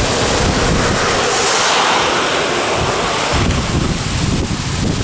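Wind buffeting the microphone from a moving vehicle on a wet road in the rain, a steady low rumble under a noisy hiss. About a second in, a rushing hiss swells and fades again by about three seconds, while the low rumble briefly drops away.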